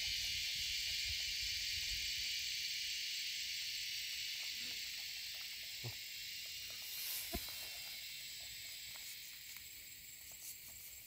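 Steady high-pitched drone of insects in the grass, slowly getting quieter, with a few faint clicks.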